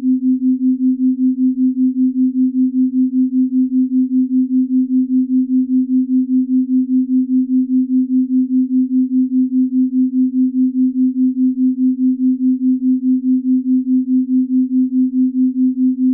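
Binaural-beat sleep tone: a single steady low sine tone that pulses evenly, about four times a second.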